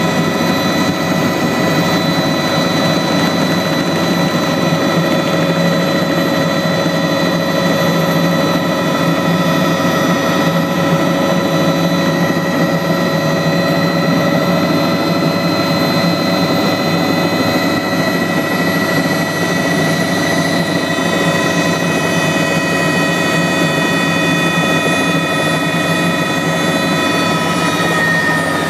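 Bell 206 JetRanger helicopter heard from inside the cabin in flight: its Allison 250 turboshaft gives a steady high whine over the dense rushing drone of the engine and rotors. The whine sags slightly in pitch over the last several seconds.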